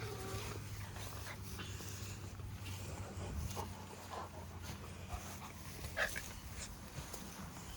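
A dog panting softly, with small faint clicks and rustles over a low steady hum.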